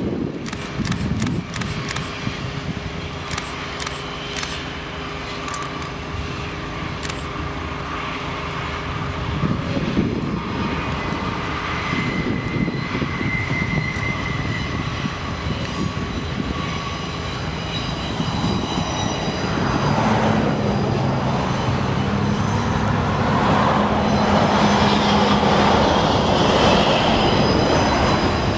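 Freight train with diesel locomotives running past, engines droning steadily. It grows louder about two-thirds of the way through as wheel and rail noise builds, with thin high squealing tones from the wheels.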